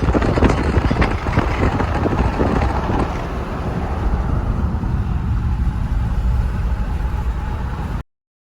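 Car on the move: a steady low road and engine rumble that cuts off suddenly near the end.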